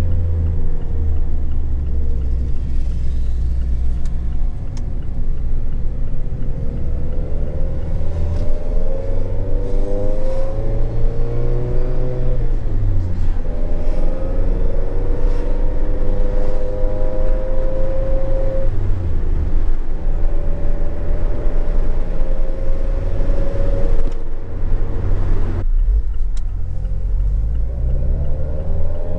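Mazda ND MX-5 Miata's 2.0-litre SkyActiv four-cylinder, fitted with a Skunk2 4-1 header and Remark cat-back exhaust, heard from inside the cabin while driving. The engine note climbs in pitch through each gear and drops back at the shifts. Near the end it falls back to a low rumble.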